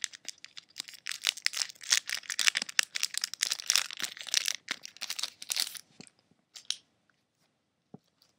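Foil wrapper of a Pokémon Base Set booster pack torn open by hand and crinkled: a dense, crackling run of tearing and crumpling for about six seconds, then a few faint crinkles.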